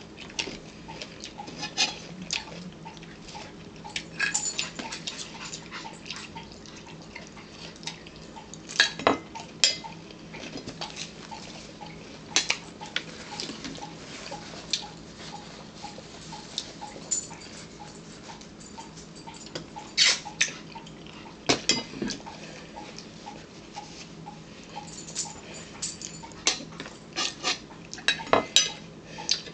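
Forks tapping and scraping on china plates, with chewing, as people eat at a table: scattered short clicks and clinks, a few louder ones, over a steady low hum.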